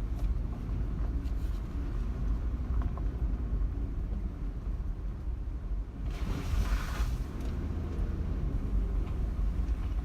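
Vehicle driving on a dirt road, heard from inside: a steady low rumble of engine and tyres, with a brief hiss about six seconds in.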